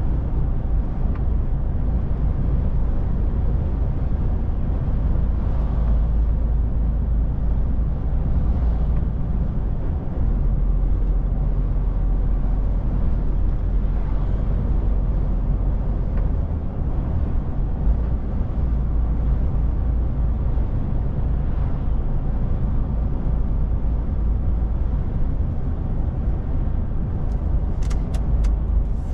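Steady engine and road drone inside the cab of a DAF truck cruising at speed, its low pitch shifting slightly about ten seconds in and again around sixteen seconds. A few sharp clicks sound near the end.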